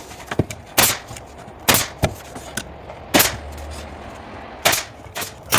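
Nail gun firing nails down through the crown molding's back piece into the top of the cabinet: about five sharp shots spaced a second or so apart, with a few lighter clicks between.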